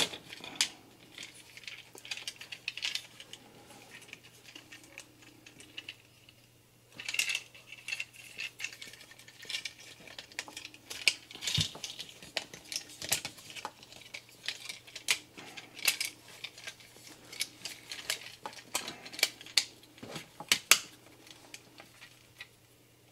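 Hard plastic parts of a Transformers action figure clicking and clattering as they are handled and snapped, pivoted and folded into place, in irregular sharp clicks with a short lull about six seconds in.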